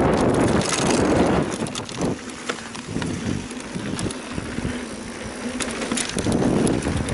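Mountain bike riding a dirt trail: tyre noise and the bike rattling and clicking over bumps, with wind on the microphone. It is louder in the first second or so and again near the end.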